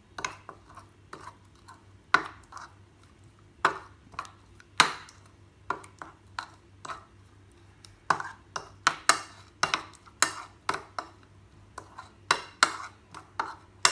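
A spoon clinking and knocking against a bowl in an irregular rhythm while spice paste and tamarind water are stirred together into a masala, the strikes coming faster in the second half.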